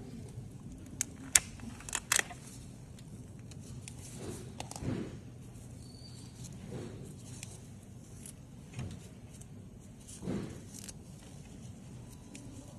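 Handling noise from gloved hands working with tweezers and a clear plastic false-lash tray: a few sharp clicks between about one and two seconds in, then soft rubbing and rustling every couple of seconds over a low steady hum.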